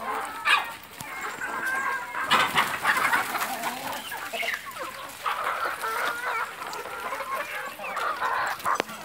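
A large flock of free-range chickens clucking, with many short, overlapping calls from several birds at once.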